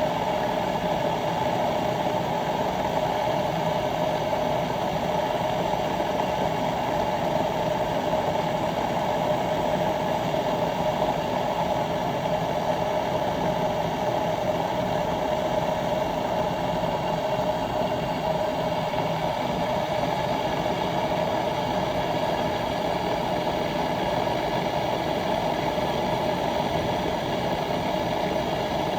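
Bodum gooseneck stainless steel electric kettle heating water, a steady, even sound that holds unchanged throughout.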